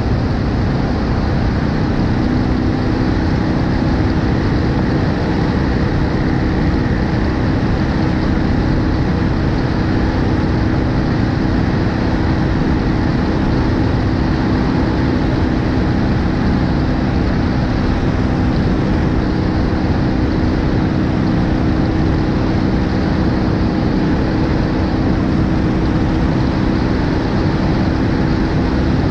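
BMW R1250GSA motorcycle riding at a steady cruising speed, its boxer-twin engine droning evenly under heavy wind rumble on a camera mounted on the front of the bike.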